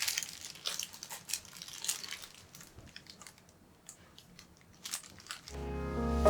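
A quick scatter of light crinkling, crackling clicks, thickest at the start and thinning out, then piano music fades in near the end.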